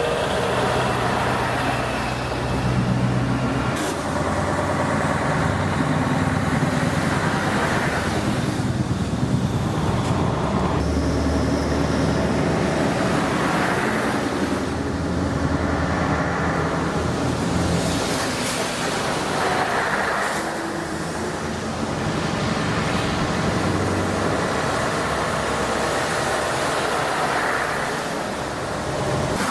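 Scania V8 diesel truck engines running and driving by, the sound swelling and easing several times.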